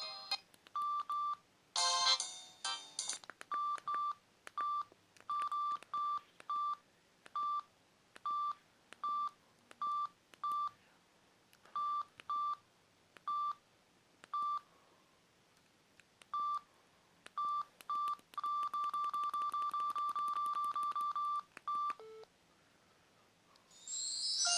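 Samsung X680V mobile phone's keypad tones: short high beeps, one per button press, at an irregular pace, then a quick run of about five beeps a second near the end. A brief snatch of ringtone melody plays about two seconds in.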